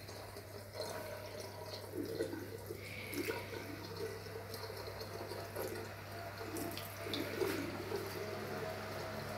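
Tap water running into a bathroom sink, with irregular small splashes as a cat's fur is wetted and rubbed by hand under the stream.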